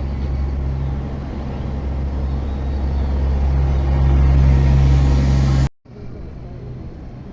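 A river tour boat's motor running with a steady low hum that grows louder. It cuts off abruptly a little over two-thirds of the way through, leaving fainter background noise.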